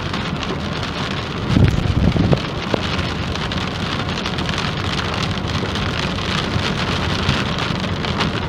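Steady heavy rain hissing and pattering on a vehicle, with a brief low rumble about a second and a half in.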